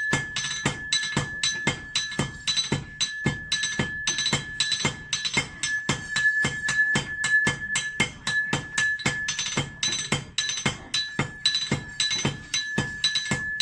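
Metal being struck over and over with a hammer, about three or four blows a second in an uneven rhythm. Every blow rings at the same steady metallic pitch.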